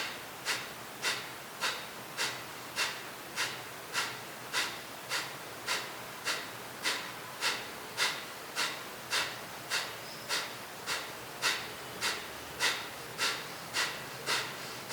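A person doing Kapalbhati pranayama breathing: sharp, forceful exhales through the nose, each a short puff of air, in an even rhythm of a bit under two per second, with no audible inhales between them.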